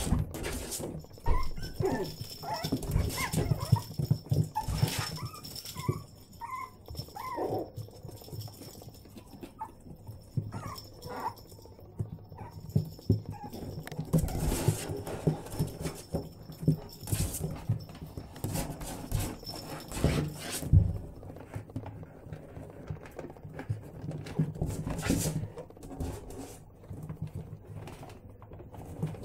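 Six-week-old Yorkshire Terrier puppies whimpering and yipping in short, high squeaks, mostly in the first half, amid scuffling and clicking as they play.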